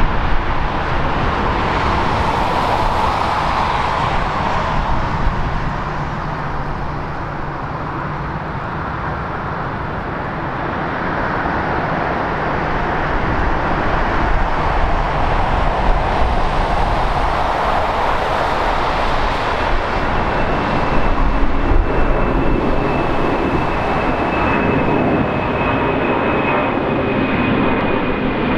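Jet engine noise from an Airbus A320 rolling on the runway. About two-thirds of the way through, a four-engine Boeing 747 climbs overhead after take-off, its engines running with a thin high whine that slowly falls in pitch.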